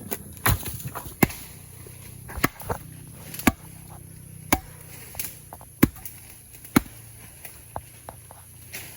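Wood being chopped with a blade: sharp chopping strokes at an uneven pace, roughly one a second.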